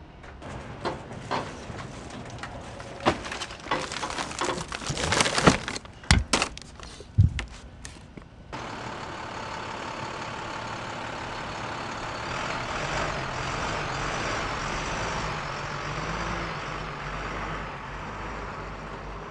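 Scattered knocks and rattles of cargo inside a box truck, with several loud bangs about six to seven seconds in. About eight seconds in it changes to a box truck's engine running steadily as the truck pulls away.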